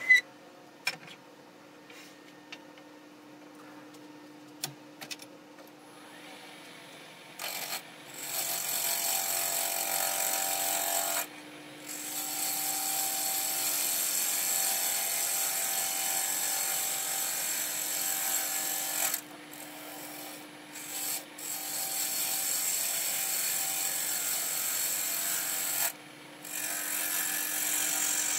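A few knocks and clicks as the black walnut blank and tool rest are set on the wood lathe, then the spinning blank being cut with a hand-held turning tool: a loud steady scraping hiss of wood shaving off, in long stretches broken by short pauses.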